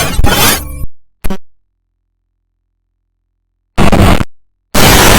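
Loud, harsh noise bursts that start and stop abruptly. The first stops about a second in, a brief blip follows, and after about two seconds of dead silence two more loud bursts come in near the end.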